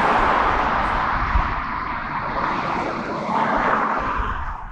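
Road traffic noise: a car passing on the street, its tyre and engine noise slowly fading.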